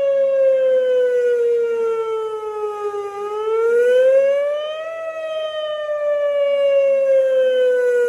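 Whelen WPS 2910 electronic outdoor warning siren sounding a loud wail. The tone slides down, rises again about three seconds in, then slides slowly down once more.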